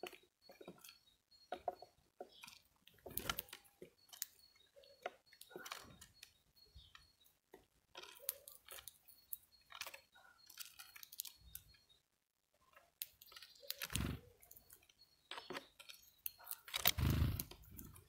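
European greenfinch cracking and husking black sunflower seeds on a wooden feeder tray: irregular small crunches and clicks, with two heavier thumps near the end.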